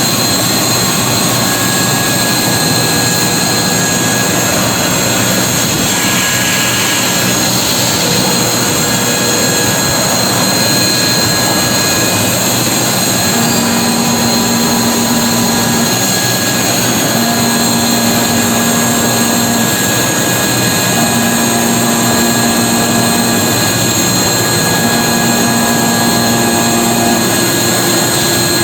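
Romi Discovery 1250 CNC machining center running: a loud, steady mechanical hiss with a fixed high whine. In the second half a low hum comes on for a couple of seconds, repeating about every four seconds.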